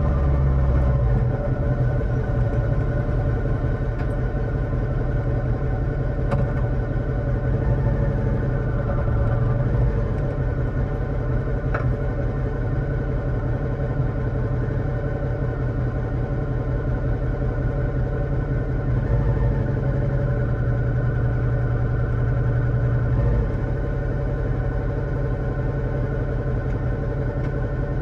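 Motorcycle engine running steadily, its pitch staying nearly level throughout, with a slight drop in level near the end.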